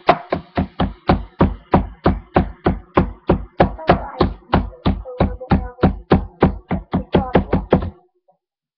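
A spoon beating Oreo cookies inside a bag to crush them: rapid, even knocks about four a second that stop about eight seconds in.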